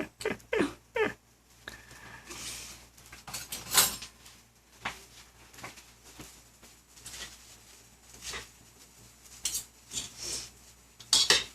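Small birds bathing in a birdbath: irregular short splashes and brief chirps, with a longer patch of splashing about two seconds in.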